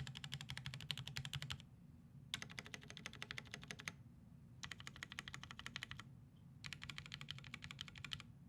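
IRON Alice mechanical keyboard with broken-in NK Cream linear switches and Durock v2 stabilisers, typed on quickly and heard very close. It comes in four bursts of rapid clacking, each about a second and a half long, with short pauses between them.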